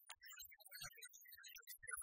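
Faint background music laid over the picture, near silence; no frying sizzle stands out.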